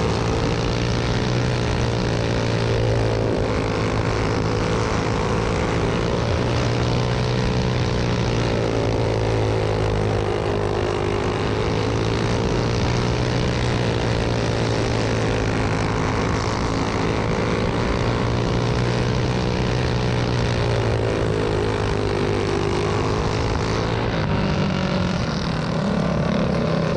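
Go-kart engine running at racing speed, heard from on board the kart, its note rising and falling every few seconds.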